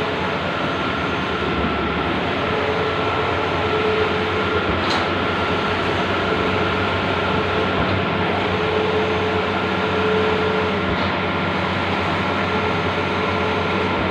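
Large-format outdoor banner printing machine running. There is a steady mechanical hum, and a whine comes and goes every few seconds.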